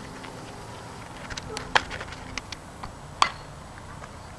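Two sharp knocks of a softball striking a bat or glove, about a second and a half apart, with a few fainter clicks between them.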